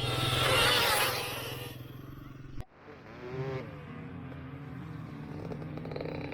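Sur-Ron Ultra Bee electric dirt bike climbing a sand dune, its motor whine wavering in pitch under loud wind noise. The sound cuts off abruptly about two and a half seconds in, then the whine resumes more softly over a steady low hum.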